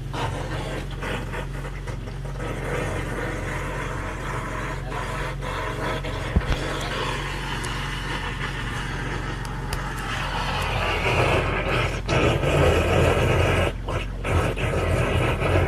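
Hydro-jetting drain cleaner running, its pump giving a steady hum while the high-pressure jet sprays inside a blocked floor-trap drain. The spray grows louder and harsher from about ten seconds in.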